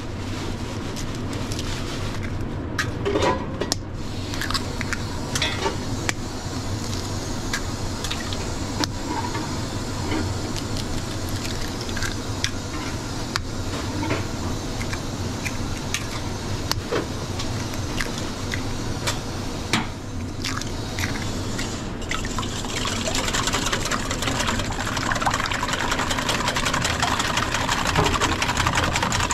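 Eggs cracked one after another against a stainless steel bowl and emptied into it, giving small sharp taps of shell on metal and wet plops, over a steady low background hum. About three-quarters of the way through, a wire whisk starts beating the eggs in a steel bowl with a fast, continuous scratchy rattle.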